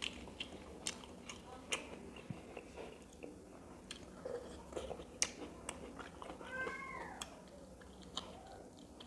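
Faint close-up chewing of a mouthful of rice and fish curry, with scattered short wet mouth clicks. A short high call that falls in pitch comes about seven seconds in.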